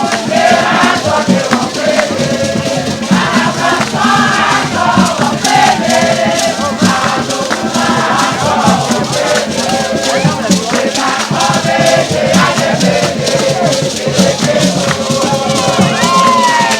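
A group of voices singing a jama chant-song together over a steady fast rattle of shakers and percussion.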